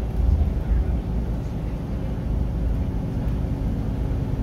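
Iveco Crossway LE bus on the move, heard from inside the passenger cabin: the steady drone of its diesel engine and a deep road rumble, with a faint steady hum.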